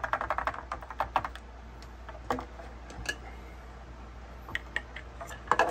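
A plastic straw stirring watermelon water in a plastic blender cup, ticking against the cup's side in a quick run of light clicks for the first second or so, then only a few scattered taps.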